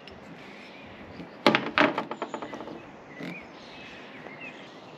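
Caulking gun working as sealant is pressed around bolts on a van roof: two sharp clunks about one and a half seconds in, then a quick run of fading clicks, and a softer knock a little later.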